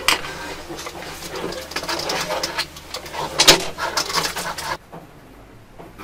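Oil-painting tools dabbing and scraping thick paint: a quick run of short scratchy taps, loudest right at the start and about three and a half seconds in, cutting off suddenly near the end.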